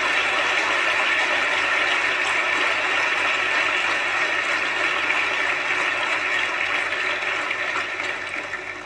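A crowd of military service members applauding steadily, the applause tapering off near the end.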